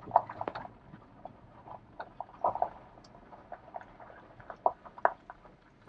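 A dog giving scattered short barks at irregular intervals.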